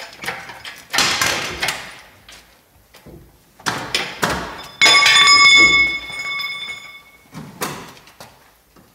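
Metal clanks and scrapes as a car engine hanging from an engine crane is worked loose from its bay. About five seconds in, a loud metallic clang rings on for about two seconds before fading.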